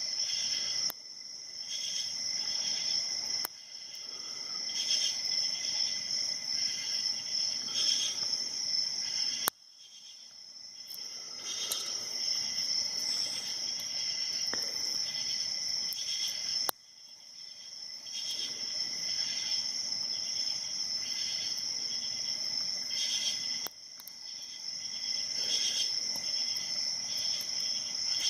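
Crickets chirping, a steady high pulsing trill, broken a few times by sharp clicks after which the sound dips and swells back.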